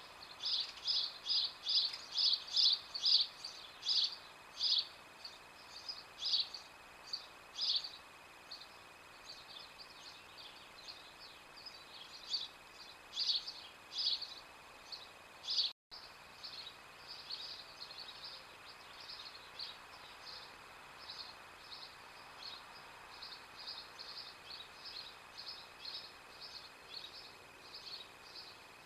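A small bird chirping over and over, short high chirps about two a second at first, then more scattered, with a faint steady high tone underneath. The sound cuts out for a moment about halfway through.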